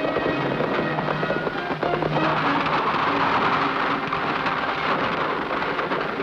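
Background music with held notes, over a steady rough noise that grows louder about two seconds in.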